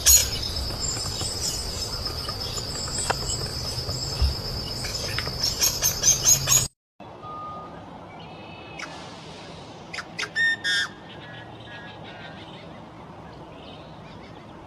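Bird calling in fast, high-pitched pulses over a steady high whine; it cuts off suddenly about two-thirds of the way in. A quieter recording follows, with a few short chirps.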